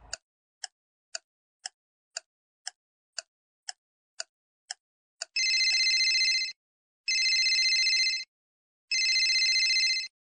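Steady ticking, about two ticks a second, then a mobile phone ringing three times, each ring about a second long with a short pause between.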